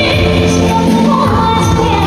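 Music with singing, loud and steady.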